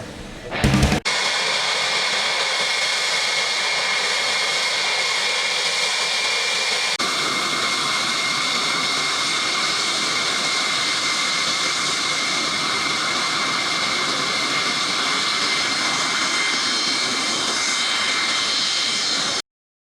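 Jet aircraft engines running steadily, with a constant high whine over the noise. The sound changes about seven seconds in, getting fuller in the low end, and cuts off abruptly near the end.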